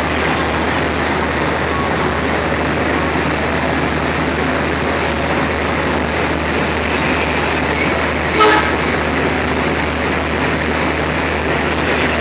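Indian Railways diesel locomotive's engine idling steadily, a continuous low hum. A single short, sharp sound cuts in about eight and a half seconds in.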